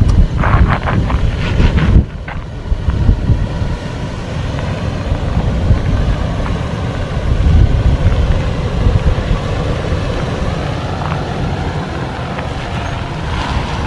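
Toyota 4Runner Trail Edition with its 4.0-litre V6 crawling over a rough off-road trail: a steady low rumble of engine and tyres on the rocky ground, with a run of knocks and clunks in the first two seconds.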